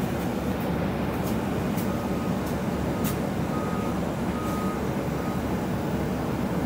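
Inside a TTC city bus: the bus's steady running rumble, with a few light clicks and rattles. A string of five short beeps at one pitch, some longer than others, sounds from about two to five seconds in.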